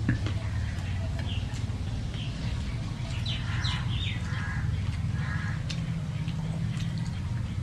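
Hand-eating sounds as two people mix and scoop rice and curry on metal plates: scattered small clicks and chewing over a steady low hum. A few short high animal calls come about three to five seconds in.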